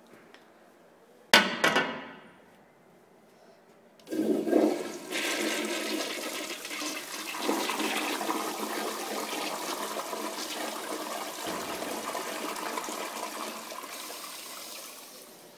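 A loud double clack about a second in, then, some four seconds in, a toilet flushing: water rushing into the bowl for about ten seconds before it fades near the end.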